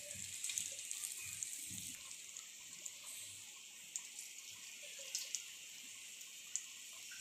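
Wet bread-and-flour dough fritters deep-frying in hot oil in a kadai: a faint steady sizzle with small scattered crackles and pops.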